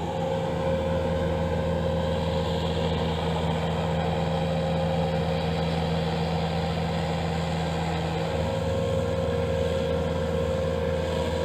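Engine of a Bobcat self-propelled brush cutter running steadily, with a steady high tone over the engine note.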